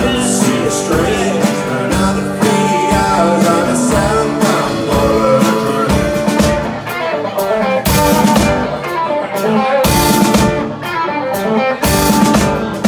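Rock band playing live: electric and acoustic guitars over a Ludwig drum kit, with several loud drum and cymbal hits in the second half.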